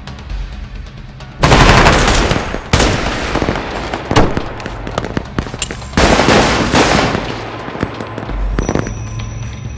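Bursts of rapid automatic gunfire, dubbed-in action-film sound effects: a long loud burst starting about a second and a half in, and another about six seconds in, with scattered single shots between and after.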